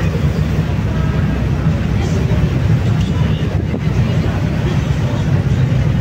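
Ferry engine running with a steady low drone, over the rush of choppy water and wind, with voices in the background.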